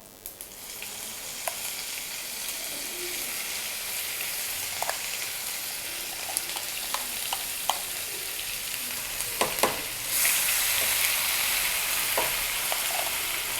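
Torn dried red chillies and nigella seeds sizzling in hot oil, with scattered sharp crackles. About ten seconds in the sizzle suddenly grows louder and hissier as the ground fish paste goes into the oil.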